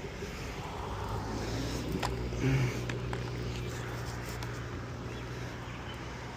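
Chainsaw idling steadily between cuts, with a faint knock or two.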